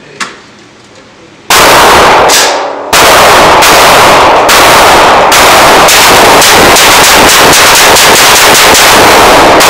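Compact semi-automatic rifle fired in a rapid mag dump, the shots echoing in an indoor range. A couple of shots come about a second and a half in, then an unbroken run of shots quickens to about five a second and stops near the end, leaving a fading echo.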